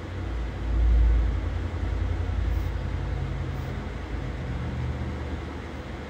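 A low rumble, loudest about a second in, then slowly easing off.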